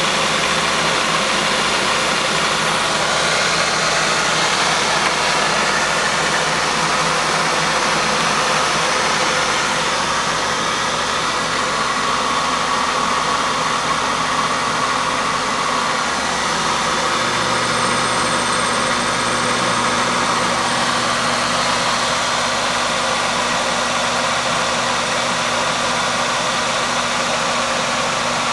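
Hermle UWF800 milling machine running steadily, its motor and gearing giving a continuous mechanical hum; a little past halfway a lower steady hum sets in.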